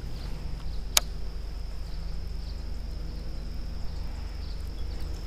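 Outdoor creekside ambience: a steady high insect hum over a low steady rumble, with a single sharp click about a second in.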